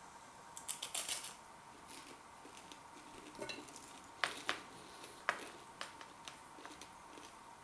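Crunchy chewing of a crispy fried vegetable net cone: scattered small crackles and sharp clicks, a quick cluster about a second in, then single ticks every half second or so.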